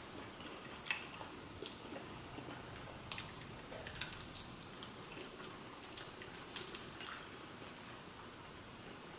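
A person eating fried shrimp and chicken wings close to the microphone: wet chewing and biting, with scattered short crunchy clicks that cluster about three to four seconds in and again around six to seven seconds.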